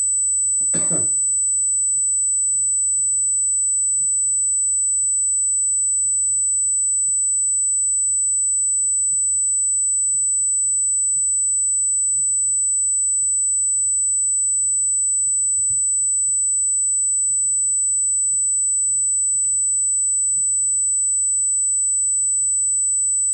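A steady, high-pitched electronic whine holds without a break over a faint low hum, an audio fault in the stream's sound. About a second in comes a single short cough.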